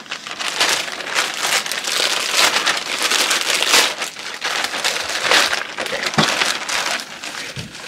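Black plastic mailing bag crinkling and rustling continuously as it is opened and tipped upside down to empty it, with many sharp crackles.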